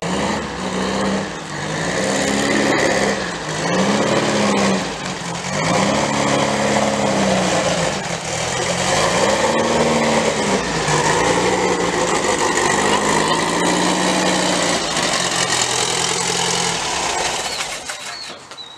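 Volkswagen Beetle's air-cooled flat-four engine running after sitting unused for a while, its throttle blipped so the engine revs up and falls back about every two seconds. The sound drops away near the end.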